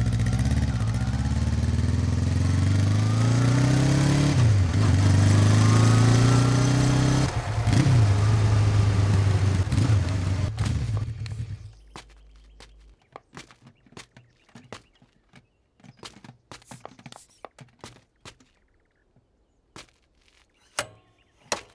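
Motorcycle engine accelerating, its pitch climbing, dropping sharply at gear changes about 4 and 7 seconds in and climbing again. It fades out about 12 seconds in, leaving only scattered faint clicks.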